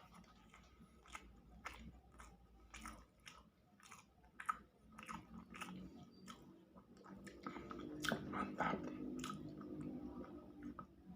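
Close-up chewing of spicy balado eggs: wet mouth clicks and smacks, about two a second, with a low hum in the second half.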